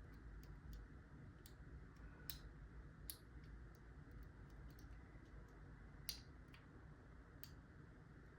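Faint, irregular small metallic clicks of a lock pick working the pin stack of a Master Lock 140 padlock, a few louder ticks among them, over a low room hum.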